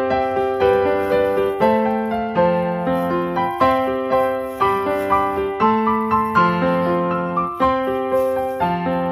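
Background piano music: a gentle melody of evenly paced notes, about two a second.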